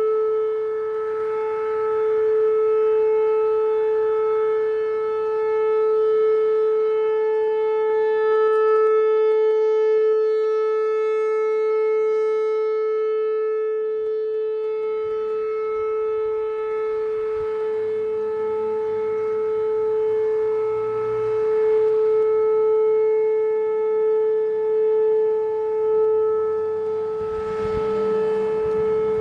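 Whelen Vortex R4 outdoor warning siren sounding its steady Alert signal: one unbroken tone, its loudness swelling and fading every few seconds.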